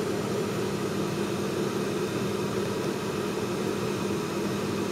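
Steady room hum with an even hiss, like a fan or air conditioner running; there are no distinct events.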